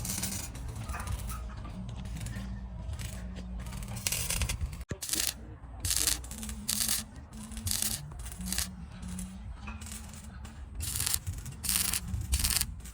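Repeated short, rough scraping strokes, coming irregularly about one or two a second, over a low steady hum.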